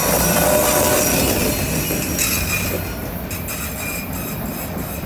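Autorack freight cars rolling slowly past on a curve, their wheels squealing in several steady high tones over a low rumble. The squeal thins out about three seconds in, leaving mostly the rumble of the rolling cars.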